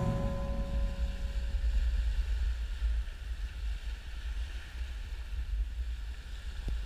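Wind buffeting the camera's microphone with an unsteady low rumble, over a faint wash of small waves breaking on the beach.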